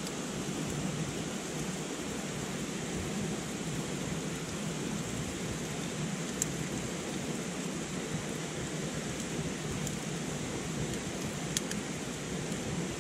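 Steady rushing of river rapids, with a few sharp pops from a small wood campfire, one about six seconds in and another near the end.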